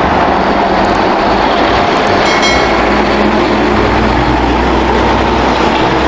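Container-hauling semi-truck driving past close by, a steady loud mix of engine and tyre noise, with a brief high squeal a little past two seconds in.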